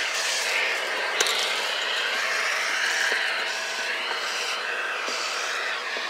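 Vacuum cleaner running with its suction drawn through a crevice nozzle on a metal wand, the rushing air changing pitch as the nozzle moves along the window sill and track. A single sharp click sounds about a second in.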